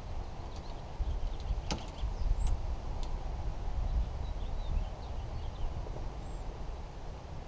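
Steady low wind rumble on the microphone with scattered faint bird chirps. A single sharp click comes a little under two seconds in.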